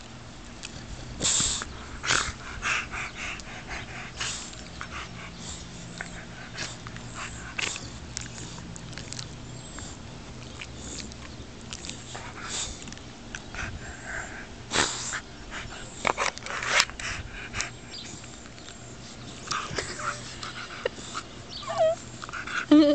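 A Dogue de Bordeaux puppy breathing and mouthing close up while rolling in grass: short noisy huffs and rustles at irregular intervals, with a brief rising tone near the end.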